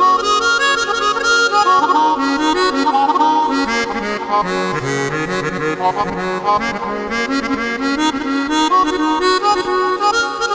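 Roland Fantom keyboard's melodica patch playing a quick melody of short runs over held chord notes, with a reedy, harmonica-like tone.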